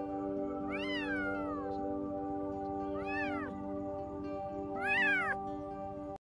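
Very young kitten mewing three times, each cry rising then falling in pitch, the last one the loudest, over steady background music. The sound cuts off just before the end.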